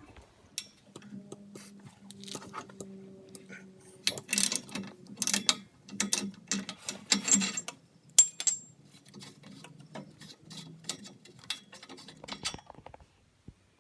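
Small metal and plastic parts of an oxygen sensor and its wiring connector being handled: a run of clicks, rattles and light knocks, with a sharper click about eight seconds in, over a faint steady hum.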